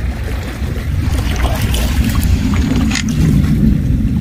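Wind buffeting the microphone in a loud, ragged low rumble, over the wash of small waves against sea rocks.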